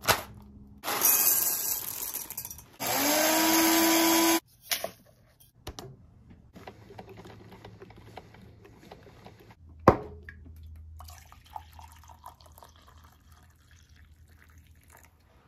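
Coffee being made: a paper packet torn open, then water running into a glass coffee-maker carafe, its tone rising as the vessel fills. A sharp click about ten seconds in is followed by a low steady hum from the coffee maker, with coffee poured into a ceramic mug near the end.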